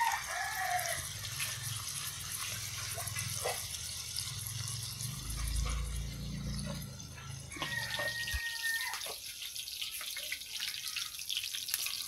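Oyster mushrooms sizzling as they fry in a pan, a steady hiss that gets brighter about two-thirds of the way through. A chicken calls in the background at the start and again about eight seconds in, and a low hum stops abruptly around the same time.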